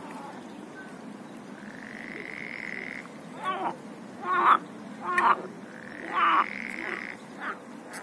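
Frogs croaking in a pond chorus: long high trills and a run of short rattling croaks, the loudest of them in the second half.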